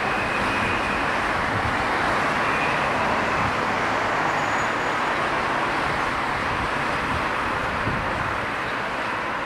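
Lockheed C-5A Galaxy's four General Electric TF39 turbofans at climb power just after takeoff: a steady jet rush with a low rumble beneath, easing slightly near the end.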